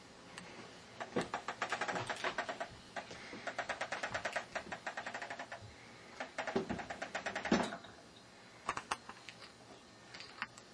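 Plastic baby push-walker toy rolling along, giving off a fast run of clicks as it is pushed. There are two spells of clicking with a short pause between, then a few scattered knocks.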